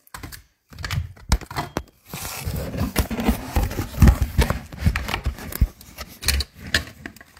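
A smartphone being handled and repositioned by hand: rubbing and rustling right on its microphone, with a string of knocks and bumps, starting after brief near-silent dropouts and running on densely from about two seconds in.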